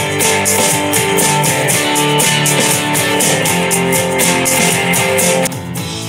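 Easy-listening rock with guitar and drums played through a JBL Clip 5 Bluetooth speaker at 70% volume. About five and a half seconds in, the same track switches to a Bose SoundLink Micro, which sounds quieter and has less treble.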